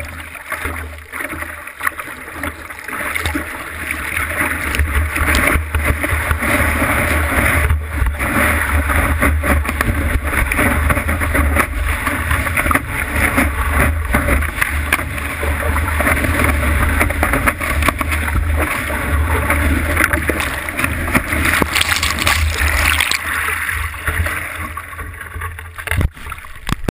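Water rushing and splashing around a surfboard's nose as it rides broken whitewater, with wind and water buffeting the microphone as a low rumble. Louder from about four seconds in, easing off near the end.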